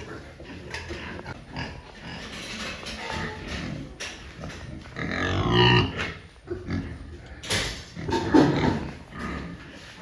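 Pigs grunting and squealing in a pen, with a loud pitched squeal about halfway through and another loud call near the end.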